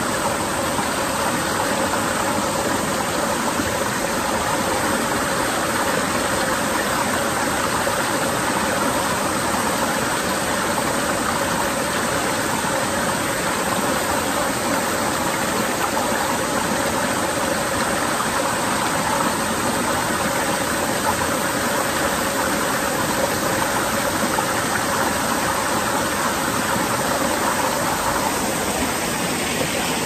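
Valley stream water rushing steadily.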